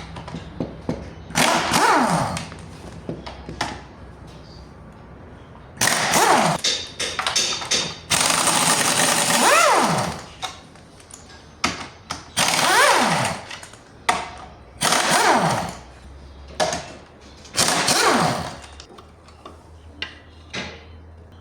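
A power tool run in repeated bursts of one to two seconds, each winding down in pitch as it stops, with small clicks of tool work in the gaps.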